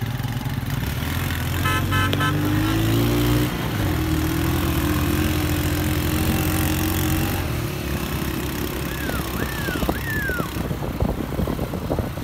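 Motorcycle engine running while riding, its pitch climbing about one to three seconds in, with a quick run of horn beeps about two seconds in. Uneven knocks and rattles come through in the last few seconds.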